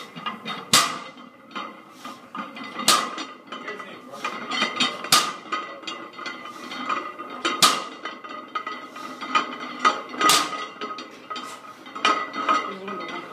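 Deadlift reps with a barbell loaded with cast-iron plates: five loud metal clanks about two to three seconds apart as the bar touches down on the rubber floor, the iron plates rattling and ringing between them.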